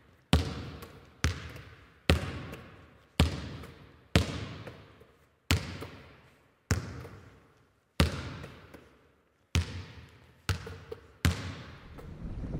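A series of about eleven sharp hits at uneven spacing, roughly one a second, each dying away over most of a second. Near the end, a steady rush of wind and water comes in.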